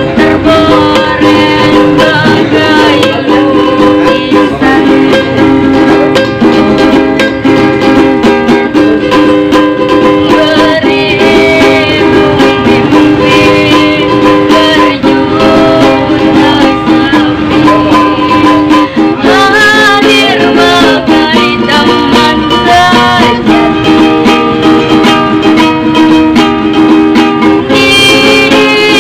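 Ukulele music: a strummed ukulele with steady held notes, in a passage without clear sung words.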